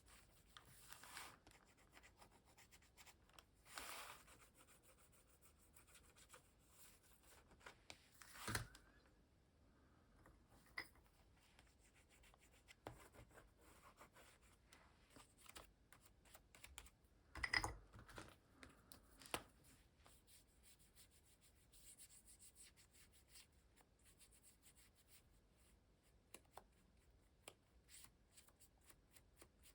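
Faint scratching and rubbing of a Caran d'Ache crayon colouring on glossy paper, with a couple of light knocks, the louder one about halfway through.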